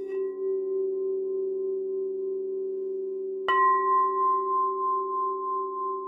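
Singing bowls ringing: several low bowls hum steadily together, and a higher bowl is struck about three and a half seconds in, its ring wavering as it slowly fades.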